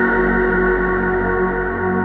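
Background ambient music: slow, sustained synth-like pads with a soft low pulse.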